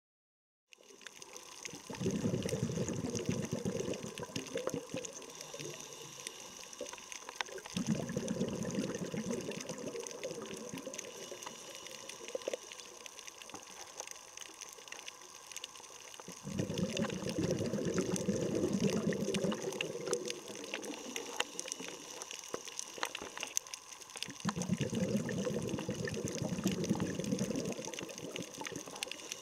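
Underwater water noise over a shallow coral reef: a steady hiss with faint scattered clicks, and a low rushing swell that comes and goes four times, each lasting several seconds.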